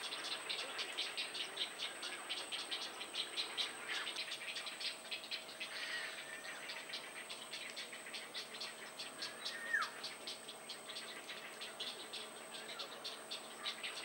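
Nature ambience: a steady chorus of rapid high chirping pulses, about six a second, with a single short falling whistle about two-thirds of the way through.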